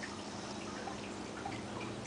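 Dogs chewing on chew treats: irregular small wet clicks and smacks of gnawing and licking, over a low steady hum.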